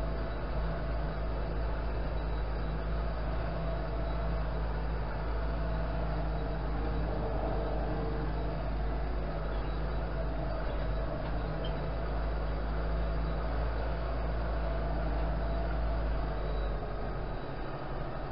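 Tractor engine running steadily, a continuous low drone heard from inside the cab as the tractor drives.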